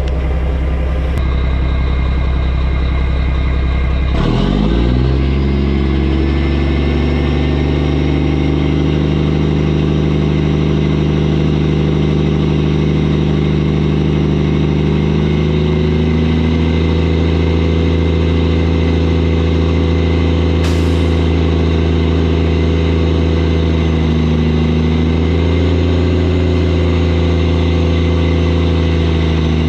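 Mack truck's diesel engine running, revved up about four seconds in and then held at raised speed to drive the PTO hydraulic pump that raises the dump trailer's bed.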